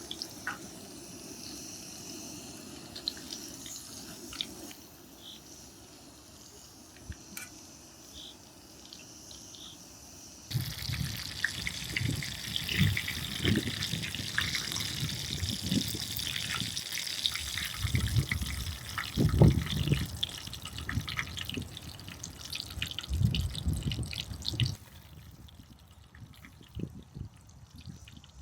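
Breaded chicken cordon bleu frying in a pan of hot oil, sizzling and crackling with scattered pops. The sizzle grows much louder and denser about a third of the way in, with some low knocks, and falls off suddenly near the end.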